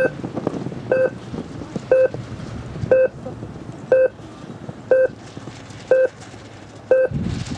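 Electronic race-start timer sounding short, mid-pitched beeps exactly once a second, eight in all: the final-seconds countdown of the start sequence, over light wind noise.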